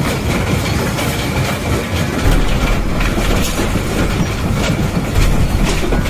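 A room shaking in an earthquake: furniture and loose objects rattle and clatter without pause over a deep rumble, which grows heavier about two seconds in.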